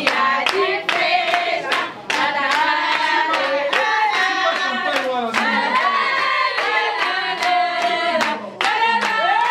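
A group of people singing together while clapping their hands in a steady beat, roughly two to three claps a second.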